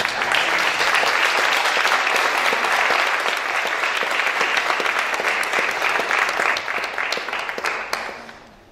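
Congregation applauding, dense and steady for about eight seconds, then dying away near the end.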